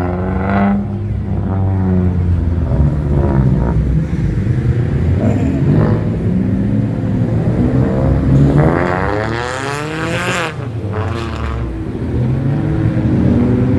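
Cars driving past one after another, their engines accelerating. About eight seconds in, one car revs up hard as it passes, its engine pitch climbing and then dropping away.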